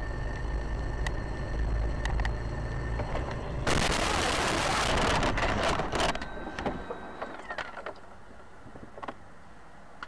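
A car's engine and road rumble heard from inside the cabin. About four seconds in comes a crash: a loud burst of crunching and scraping lasting about two seconds, then scattered knocks and rattles as things settle.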